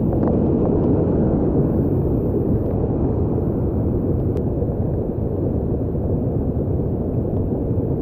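Stream water rushing down over boulders in a small rocky cascade: a steady low roar, with a few faint ticks.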